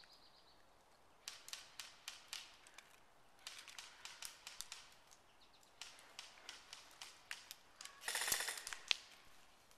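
Airsoft guns firing: scattered groups of sharp plastic clicks at a few shots a second, then a louder rapid full-auto burst lasting under a second about eight seconds in, ending with one sharp crack.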